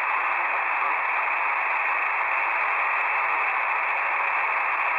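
Shortwave radio static: a steady hiss of band noise from a smartphone software-defined radio receiver in lower-sideband mode, tuned to about 7.047 MHz in the 40-metre amateur band, with no station coming through.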